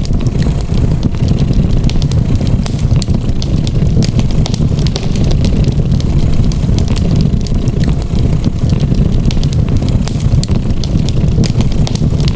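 A cat purring in a steady low rumble, mixed with the crackling and popping of a fireplace fire.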